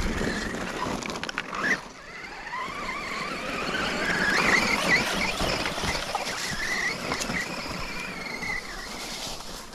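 Electric 1/10 scale RC truck with a 2600 kV brushless motor on a 2S battery, driving over a dirt and rock trail. Its motor and drivetrain whine rises and falls with the throttle over the crunch of the tyres on the ground.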